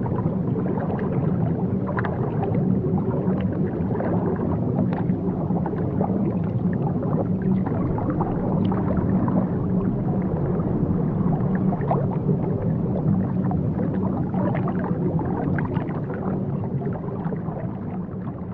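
Steady low rumble of moving water in an aquarium, with faint scattered clicks and gurgles; it fades near the end.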